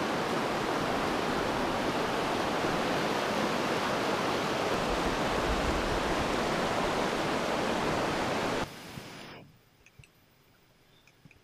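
Steady rush of a fast mountain river running in rapids, which cuts off abruptly near the end and leaves only a faint background.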